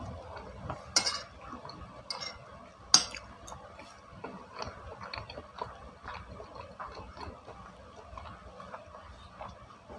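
Metal spoon clinking and scraping against a plate while scooping up cilok, with two sharper clinks about one and three seconds in and lighter clicks between.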